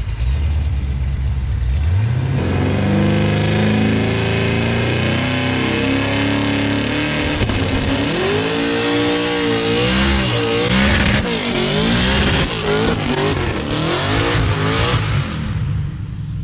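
Twin-turbo 427 LSX V8 in a Cadillac Escalade revving up about two seconds in and holding high, then rising and falling repeatedly as the tires spin in snow. The trans brake failed to hold because the spinning wheels showed road speed on the speedometer.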